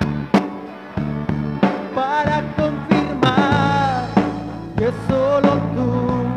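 Live church band playing a worship song: drum kit hits in a steady beat under electric guitar and bass guitar, with a wavering melody line entering about two seconds in.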